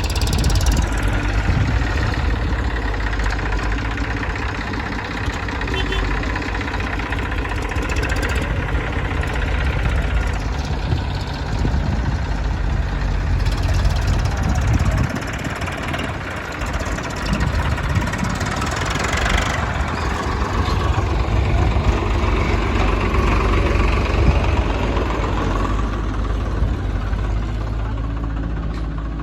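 Diesel engines of a JCB backhoe loader and a tractor running together; the loader's engine swells and eases every few seconds as it works, loading sand.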